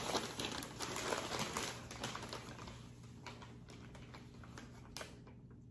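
Brown packing paper crinkling and rustling as it is pulled open by hand. It fades after two or three seconds to faint scattered rustles, with a small sharp click near the end.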